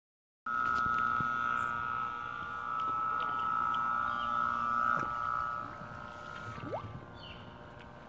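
Electric submersible sump pump motor running while still out of the water, sucking air: a steady high whine with a lower hum under it, starting abruptly about half a second in. About six seconds in it turns quieter as the pump is lowered into the septic tank water.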